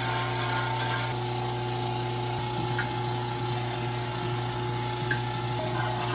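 MEAT! Your Maker electric meat grinder running under load with a steady, low motor hum, grinding cooked beef brisket.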